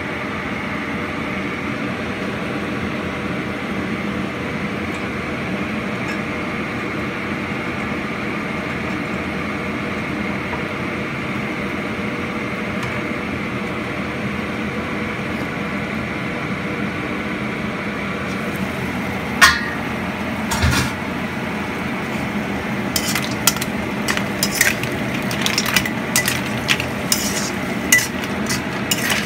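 A steady hiss from the covered wok of mussels; about two-thirds of the way through come two sharp clanks as the lid is handled, then a metal ladle stirs the mussels, their shells clinking against the wok in quick irregular strokes.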